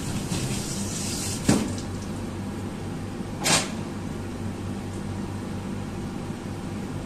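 Water at a rolling boil in a wide frying pan, bubbling over a steady low hum. A sharp knock comes about a second and a half in, and a short clatter about two seconds later.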